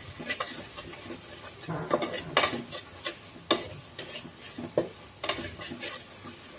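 A spatula stirring salt into thick onion-and-masala curry in a metal pot, with irregular scrapes and knocks against the pot over a low sizzle.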